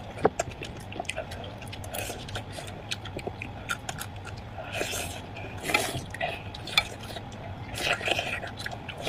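Close-miked wet eating sounds: chewing and slurping of meat from a spicy broth, with louder slurps about five, six and eight seconds in and scattered sharp clicks.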